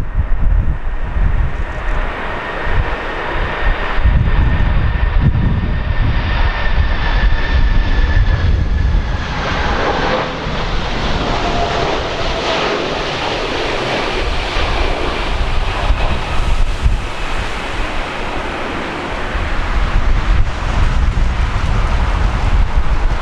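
Jet freighter passing on landing approach, its engine whine falling slowly in pitch as it goes by, loudest about halfway through. Strong wind buffets the microphone with a low rumble throughout, heaviest at the start and the end.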